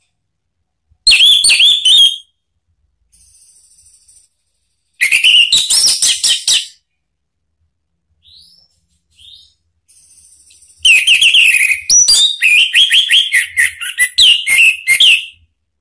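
Orange-headed thrush singing loud, quick, varied phrases in three bursts, the last and longest lasting about four and a half seconds, with faint high chirps in the gaps.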